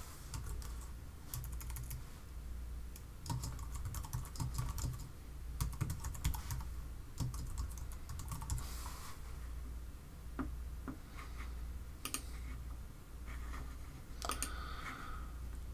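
Typing on a computer keyboard in quick bursts of keystrokes, thinning out after about nine seconds into a few separate clicks near the end, over a faint low hum.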